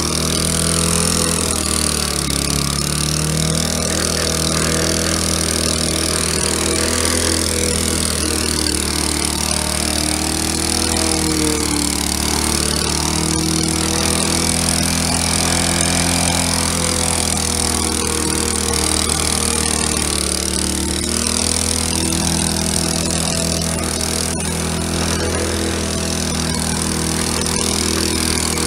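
Briggs & Stratton Quantum lawnmower engine running steadily at full throttle while the mower cuts grass. Its pitch sags and recovers a few times as the load changes.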